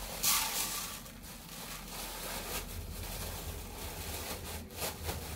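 Thin plastic bag of rice rustling and crinkling as it is handled and opened, with a louder crinkle just after the start.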